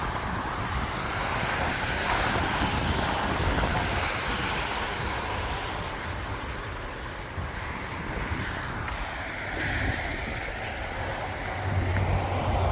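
Winter wind buffeting the microphone with road traffic going by in a snowstorm. A low steady engine hum comes in near the end.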